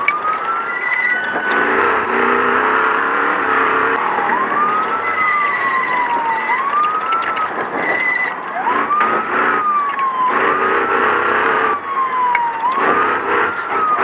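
Wailing electronic passing siren on an off-road race truck, its pitch sweeping up quickly and sliding slowly down, over and over, with short higher beeps in between. Underneath is the noise of a racing engine. The siren warns a slower vehicle ahead that a faster truck wants to pass.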